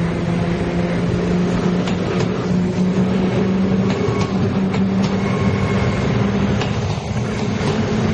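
A Taiwan Railways Tze-Chiang express train running past close by: a steady hum from its drive with a few held tones, one edging up in pitch near the end, and sharp wheel clicks over the rail joints.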